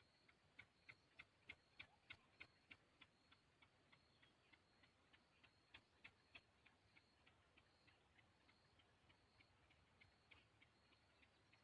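Faint, regular ticking, about three ticks a second, growing weaker toward the end.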